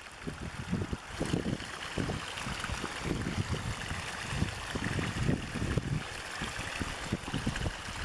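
Small stream of water pouring over a low ledge into a shallow pool: a steady rushing splash with irregular low gurgles.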